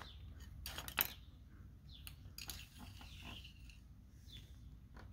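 Faint clicks and light scraping of a thin metal oil dipstick handled in the filler tube of a Honda Gold Wing GL1800 engine while checking the oil level, with one sharper click about a second in.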